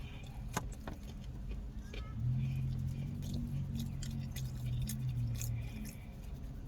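A car engine's low steady hum, swelling for a few seconds in the middle, with scattered light clicks and taps.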